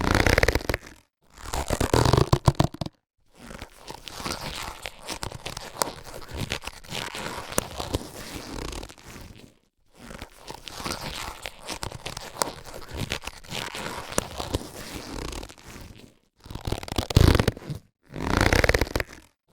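Latex surgical gloves being handled and rubbed, in separate takes with short dead-silent gaps between them: loud bursts in the first three seconds and again in the last three, and two longer, quieter stretches of crackly rubbing with many small clicks in between.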